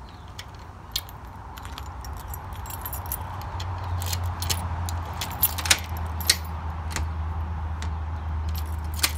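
A bunch of keys jangling and clicking as a key is turned in a door's lock cylinder to lock it, with several sharp metallic clicks. A low steady hum underneath grows louder from about four seconds in.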